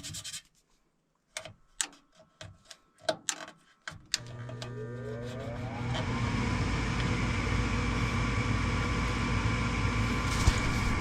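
Short crinkling and tearing clicks of electrical tape, then about four seconds in a furnace fan motor starts, its whine rising over a couple of seconds as it spins up, then running at a steady hum with rushing air.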